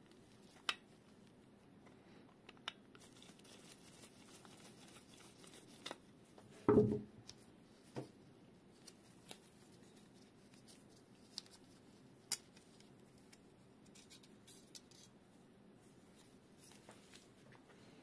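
Small sharp metal clicks and short scrapes as a flathead screwdriver pries at the brass valve fitting of a tripod gas-stove adapter, working its small spring loose. About seven seconds in comes one louder, duller knock.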